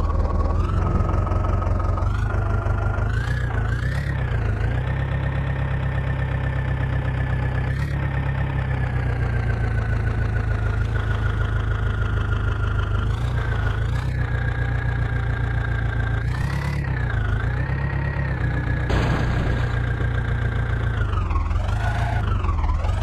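Diesel engine of heavy earthmoving machinery running steadily, its revs dipping and rising a little every few seconds as it works.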